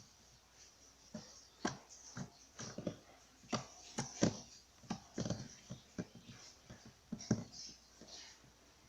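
Slime being squeezed and kneaded by hand, giving irregular wet clicks and squelching pops, a few a second.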